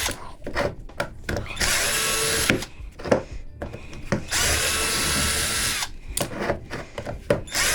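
A handheld power tool working on a metal fan-motor housing, run in short bursts of about a second each, speeding up and winding down each time, with clicks and knocks in between.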